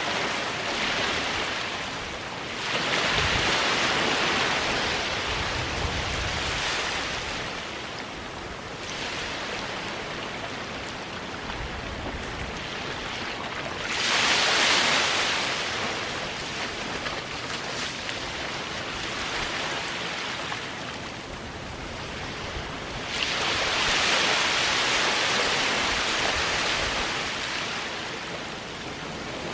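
Small ocean waves washing up onto a sandy beach, with a steady hiss of surf. Three louder swells of breaking wash come roughly every ten seconds.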